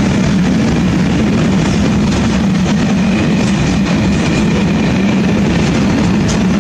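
Freight train of covered hopper wagons rolling past close by: a loud, steady rumble of wheels on rail.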